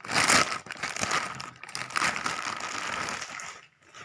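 Thin clear plastic packaging bag crinkling and rustling in the hands as a bra is pulled out of it, in several louder surges. The crinkling stops shortly before the end.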